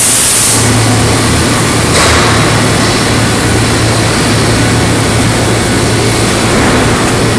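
Overhead shop crane carrying a steel plate hung from plate clamps, heard in loud steady industrial noise with a constant low hum underneath. A brief hiss sounds right at the start.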